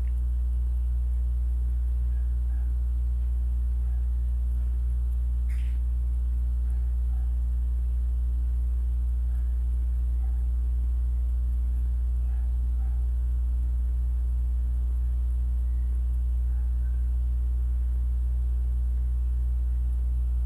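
Steady low electrical hum with a stack of overtones, unchanging throughout, with one brief faint tick about five and a half seconds in.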